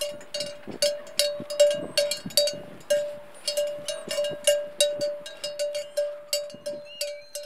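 A cowbell on a grazing cow's collar clanking irregularly, about three strikes a second, each ringing on the same steady note.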